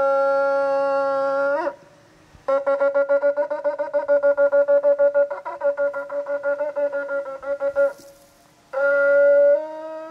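Ram's-horn shofar being blown: a long held blast that breaks upward at its end, then after a short pause a rapid run of short staccato blasts at about four a second for some five seconds, then near the end another long blast that steps up in pitch.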